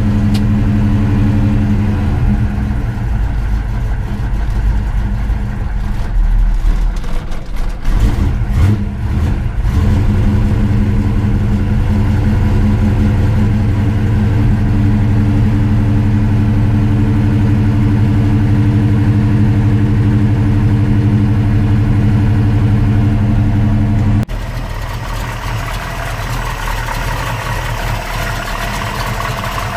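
Dodge Dart's 408 stroker Mopar V8 with a solid roller cam running steadily. The sound breaks up briefly around eight seconds in, then steadies again. About 24 seconds in it cuts abruptly to a quieter, hissier engine sound.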